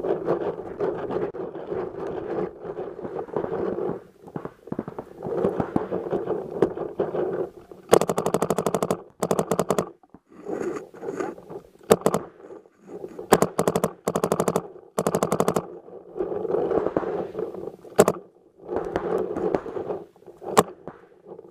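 Paintball markers firing in rapid strings throughout. The sharpest and loudest bursts, several fast strings of many shots a second in the middle and later part, come from the electropneumatic Dye DM13 that the camera is mounted on.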